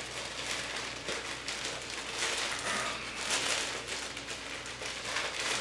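Plastic poly mailer bag crinkling and rustling as it is handled and pulled open by hand, in uneven spells of crackly noise, loudest about two and three seconds in.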